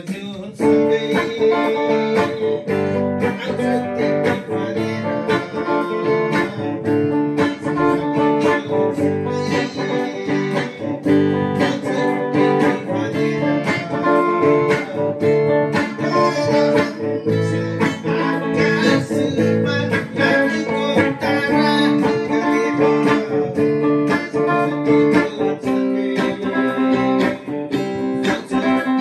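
Gretsch guitar being played, a run of plucked single notes and chords, as a sound check of the guitar's tone.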